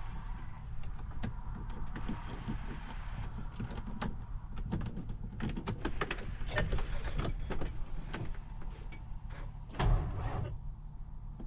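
Pickup truck failing to crank when the key is tried: irregular clicks and knocks with no engine turning over, the sign of a no-start after the truck has sat for two days. A louder thump comes about ten seconds in.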